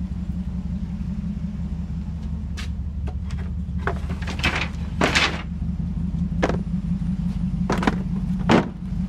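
An engine idling steadily, with a series of wooden knocks and clatters as wooden target-stand frames are handled and laid into a pickup truck bed; the loudest knock comes near the end.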